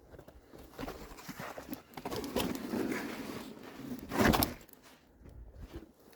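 Irregular footsteps and scuffing on a rocky trail, with a louder rustle about four seconds in.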